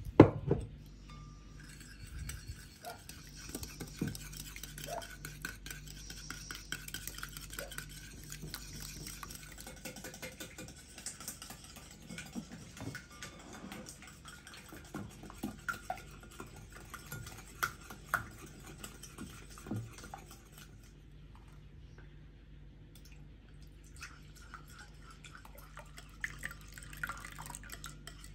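Wire whisk beating egg yolks and sugar in a glass bowl: quick, light clinking and scraping of metal on glass, with a knock at the very start and a few seconds' pause near the end.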